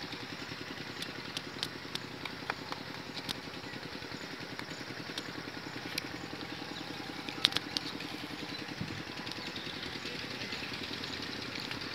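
A small engine idling steadily in the background, with a rapid even pulse, and a few sharp clicks, the loudest about seven and a half seconds in.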